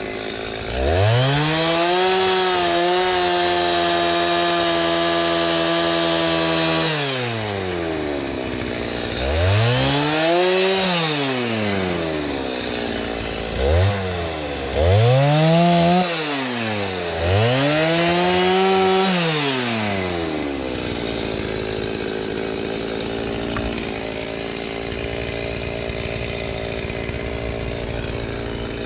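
Petrol chainsaw cutting seasoned oak firewood logs. It jumps from idle to full throttle about a second in and holds there for about six seconds, drops back, revs up and down in four short swells, then settles back to a steady idle for the last several seconds.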